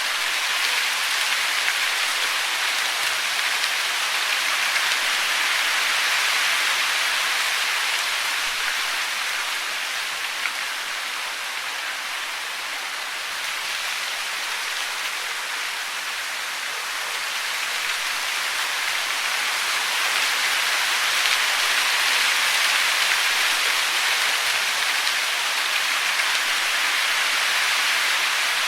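Steady hiss of falling water, rain or a waterfall, an even rushing noise that swells and eases slowly without break.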